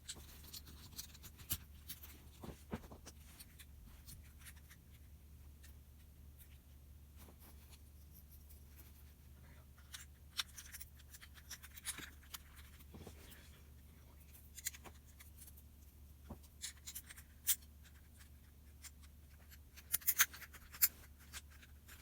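Light clicks and scrapes of small plastic twisty-puzzle pieces being handled and pushed into place, scattered through, with a quick run of sharper clicks near the end. A steady low hum underneath.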